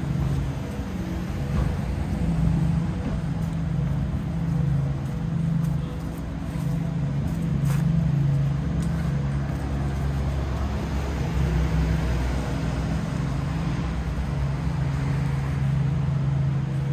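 Street traffic noise: a steady low motor hum over a wash of road noise, with one sharp click about eight seconds in.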